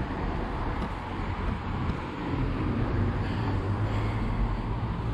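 Road traffic on a town street: cars driving past, the noise swelling a little about halfway through as a car goes by.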